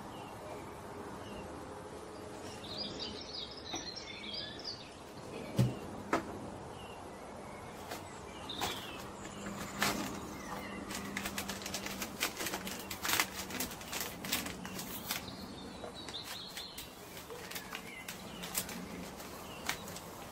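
Handling sounds of a cardboard jelly-powder box and a spoon at a small glass jar on a wooden cutting board: scattered clicks, taps and rustles. Short high chirps come a few seconds in.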